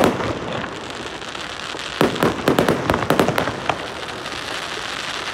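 Fireworks going off: a sharp bang at the start, then a rapid run of about a dozen cracks and pops between two and three and a half seconds in. A continuous crackling hiss of burning stars and fountains runs under it all.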